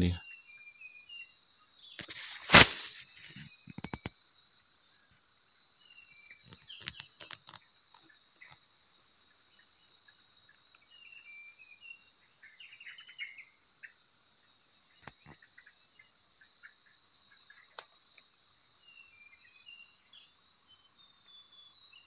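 Steady high-pitched insect chorus at two pitches, with scattered short chirps of wild songbirds. A single sharp knock about two and a half seconds in stands out above it.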